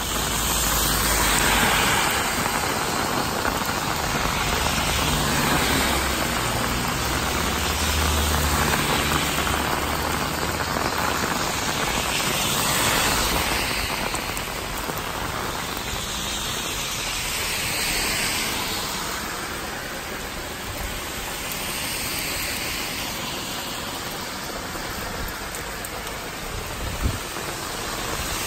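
Heavy rain pouring onto a street and wet pavement: a dense, steady hiss that swells and eases every few seconds. A single sharp tap sounds near the end.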